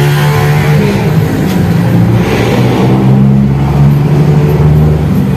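A low melody of held notes, stepping to a new pitch about once a second, loud and unbroken.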